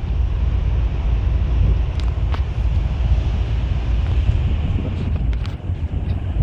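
Steady low rumble of a bus engine and road noise, with wind buffeting the microphone. A few sharp clicks about two seconds in and again about five seconds in.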